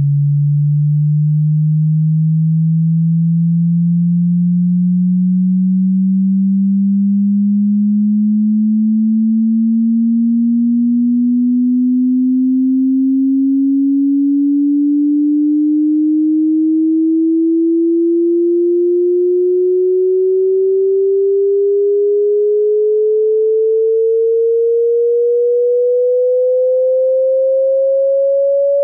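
Pure sine-wave test tone sweeping slowly and steadily upward in pitch, from a low hum to a mid-range tone, at constant loudness: a hearing-test frequency sweep.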